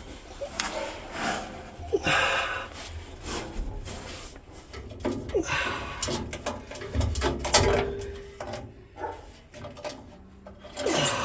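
Irregular scraping, rustling and knocking as melted plastic debris is worked loose and pulled out of a furnace's metal heat exchanger by hand, with a few short squeaks.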